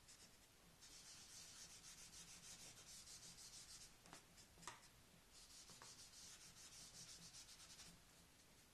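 Hand rubbing blue pastel into drawing paper, faint quick back-and-forth strokes. The strokes come in two runs, broken about halfway by a short pause and a small tick.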